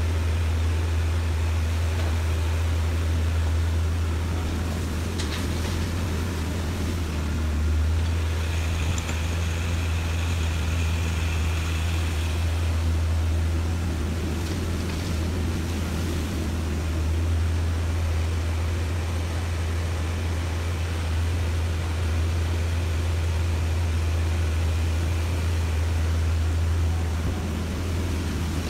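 Diesel engines of a hydraulic excavator and a dump truck running steadily with a deep, even drone while the excavator loads the truck. A faint higher whine rises over it for a few seconds, about eight seconds in.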